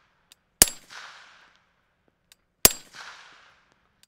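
Two suppressed shots from a 5.56 NATO AR-style rifle fitted with a Troy TPRS Kryptos suppressor, about two seconds apart. Each is a sharp crack followed by about a second of fading echo.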